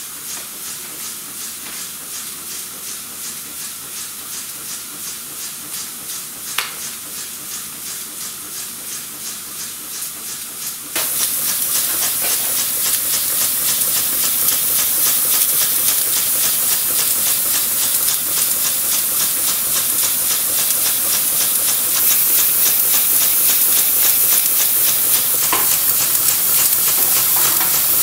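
Homemade brass twin-cylinder steam engine running on steam, its exhaust hissing and puffing in a quick, even rhythm. The sound becomes suddenly louder about eleven seconds in.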